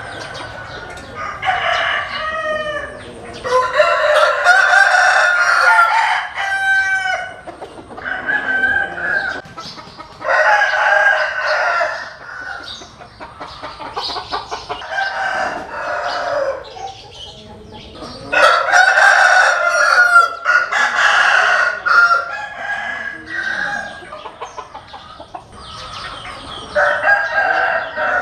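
Several roosters crowing one after another, their calls of a second or two often overlapping, with chickens clucking between the crows.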